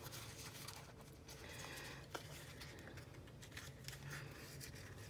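Faint handling sounds of a sticker package being opened: a few light clicks and rustles over a low steady hum.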